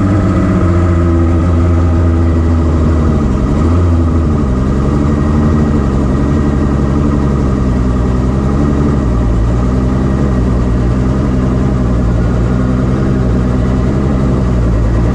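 2013 Mercury 250 Pro XS two-stroke V6 outboard running steadily at idle on its test run after a lower unit install. The pitch dips briefly and recovers about four seconds in, then wavers slightly.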